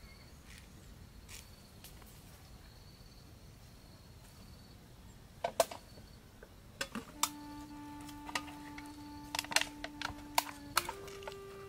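Sharp crackling clicks of a thin plastic drink bottle being picked up and handled, starting about halfway through, over a low held tone that steps up in pitch near the end.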